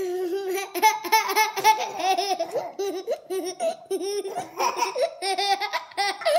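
A young child laughing in a long, unbroken run of high-pitched giggles.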